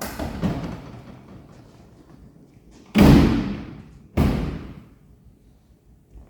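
A sharp knock at the start that trails off, then two loud slams about a second apart, each dying away over about a second.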